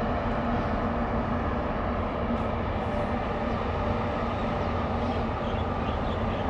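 Steady machinery drone from a large bulk carrier passing close by: a low, unbroken hum with a few held tones over a constant rush of noise.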